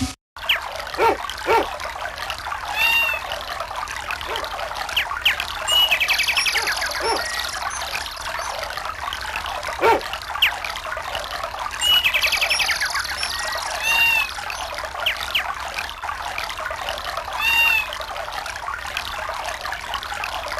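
A Samsung SGH-E630 nature-sound ringtone: birds chirping over a steady rush of running water, starting after a brief silent gap and repeating as a loop.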